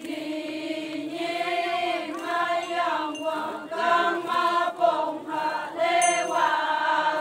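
A group of voices chanting a Konyak Naga folk song in unison, with long held notes that step up and down in pitch; the singing stops at the very end.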